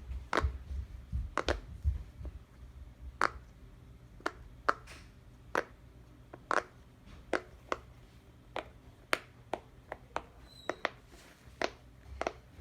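Silicone pop-it fidget toy having its bubbles pressed one at a time: a string of sharp, irregular pops, roughly one every half second to second.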